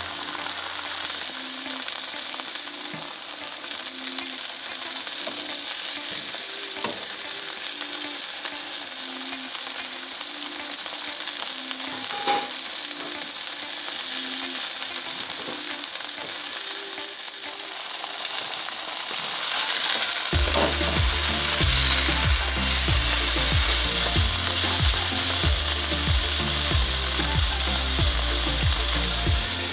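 Sirloin steak and salmon fillets sizzling in hot oil in nonstick frying pans, a steady crackling hiss. About two-thirds of the way through, a low rhythmic beat comes in underneath.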